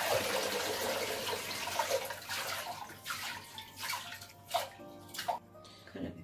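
Water running from a tap in a steady hiss, dying away about two and a half seconds in. After it come a few light knocks and clicks, with faint background music near the end.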